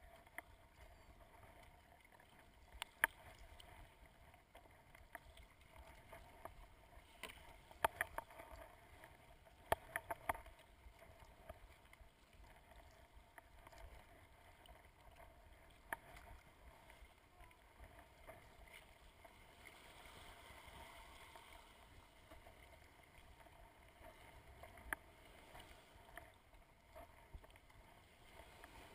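Faint, muffled sound of a plastic sit-on-top kayak being paddled, heard through a GoPro: a low wash of water with scattered sharp knocks, bunched together about seven to ten seconds in.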